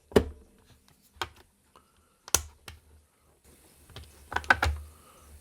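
Scattered sharp plastic clicks and taps as 3 mm countersunk screws are tried into a 3D-printed case, with a cluster of quicker clicks near the end. The screw holes seem a bit small for the screws.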